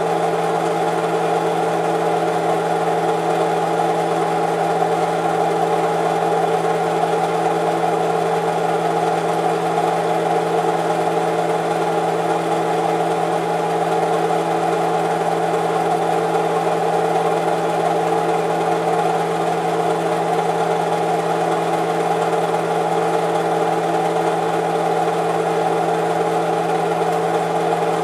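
Film projector running: a steady mechanical whir and hum that does not change.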